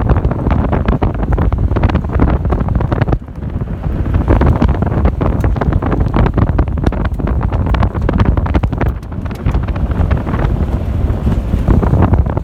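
Wind buffeting the microphone at a moving van's side window, over the low rumble of the van driving a rough dirt road, with frequent knocks and rattles from the bumps. The noise drops briefly about three seconds in.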